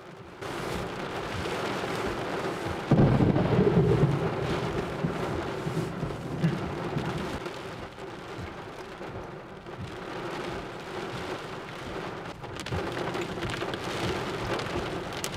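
Heavy thunderstorm rain pelting the car, with a loud clap of thunder about three seconds in that rumbles on for several seconds.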